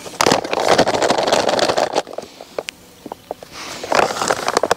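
Stiff plastic bait bag crinkling as it is handled and opened, with a hand rummaging inside it: about two seconds of rustling, a few small clicks, then more rustling near the end.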